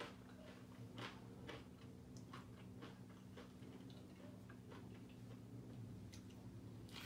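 Faint, irregular crunching clicks of someone chewing a bite of crisp tostada, over a low steady room hum.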